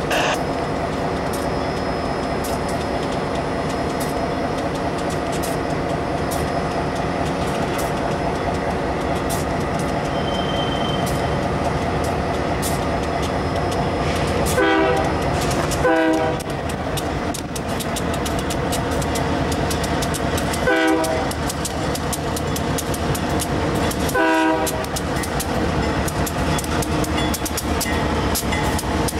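Union Pacific freight train led by a GE C40-8 diesel locomotive passing slowly, its engines droning steadily. Four short horn blasts sound in the middle of the stretch, two close together and then two more spaced a few seconds apart.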